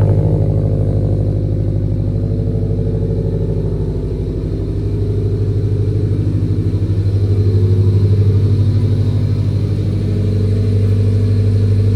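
Car engine and exhaust droning at steady cruising revs, easing off slightly about four seconds in and building again.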